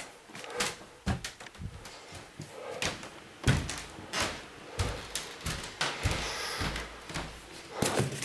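Things being handled and moved about among boxes and bags: irregular knocks and bumps with rustling between them, the loudest a thump about three and a half seconds in.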